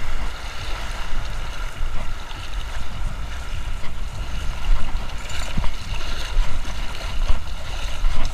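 Shallow seawater sloshing and small waves breaking, with wind rumbling steadily on the microphone.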